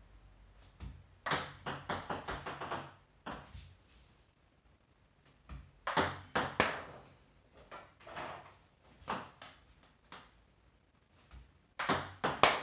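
Table tennis ball clicking in quick runs of sharp taps as topspin serves are practised: paddle strikes and the ball bouncing on the table, coming in several bursts with short pauses between.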